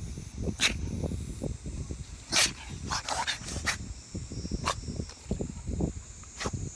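A beagle sneezing repeatedly: short, sharp bursts every second or two, the loudest about two and a half seconds in, over a low rustling.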